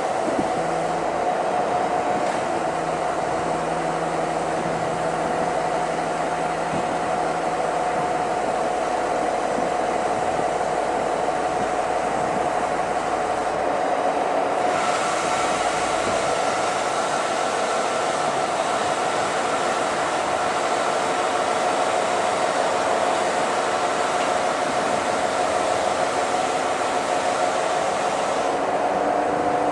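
Truck-mounted crane's engine and hydraulic pump running steadily under load, with a constant whine over the engine noise as the crane lifts a heavy load.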